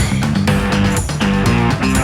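Background music: an upbeat instrumental rock track with strummed guitar and a steady beat.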